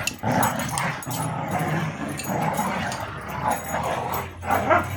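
A pit bull and a terrier mix growling almost without pause as they pull on a rope toy in tug-of-war play, with a louder burst of dog noise near the end.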